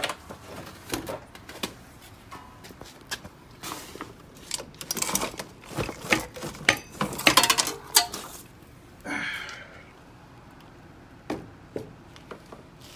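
Hands handling small hard objects: irregular knocks, clicks and clattering, thickest in the middle, with a short scraping rustle about nine seconds in.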